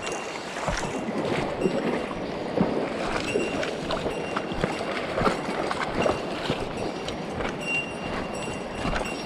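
Mountain stream water rushing, with irregular knocks and clatters scattered through it.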